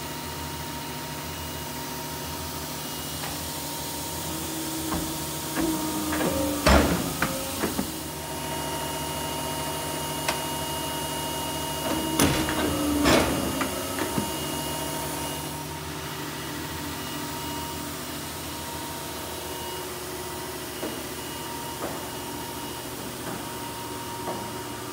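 Polar 92X guillotine paper cutter humming steadily while it runs, going through two cut cycles: clunks and knocks as the clamp and knife come down and return, about 6 seconds in and again about 12 seconds in.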